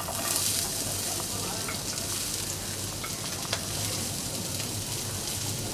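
Onion dropped into hot oil in a pan, sizzling the instant it goes in and then frying steadily, with a few light clicks.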